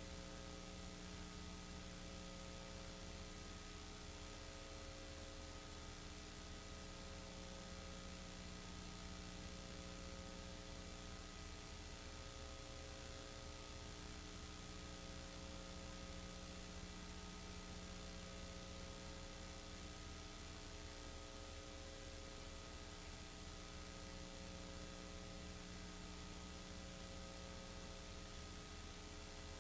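Steady electrical hum and hiss, with no other sound: the noise floor of a silent home movie's transfer.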